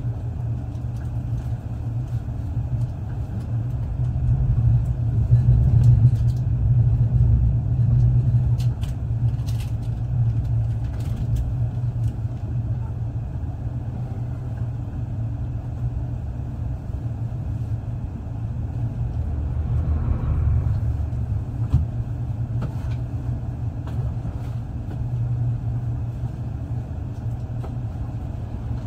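Passenger train running on the rails, heard from inside the carriage: a steady low rumble that swells a little about five seconds in and again past the middle, with a few faint clicks.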